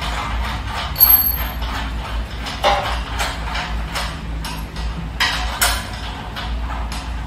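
Metal clinks and knocks from a white steel desk frame and its screws being handled and fitted together, with a sharp metallic ping about a second in. A steady low hum runs underneath.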